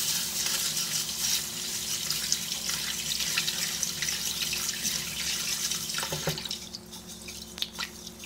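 Kitchen tap running into an aluminium bowl as adlai (Job's tears) grains are rinsed by hand. The tap stops about two-thirds of the way through, leaving small splashes as the grains are swirled in the water.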